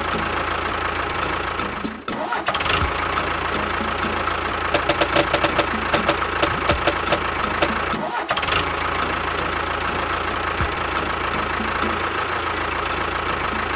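A motor running steadily, cutting out briefly about two seconds in and again about eight seconds in, with a run of rapid clicks or rattles in the middle.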